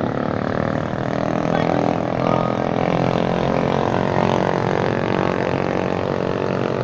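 A motor vehicle's engine running steadily, a continuous droning hum.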